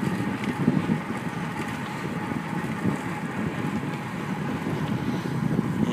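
Wind buffeting the microphone of a camera on a bicycle being sprinted along a road: a steady, even rush.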